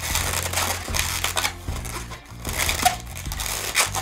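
Inflated latex twisting balloon squeaking and rubbing as hands twist and fold its loops, in irregular streaks.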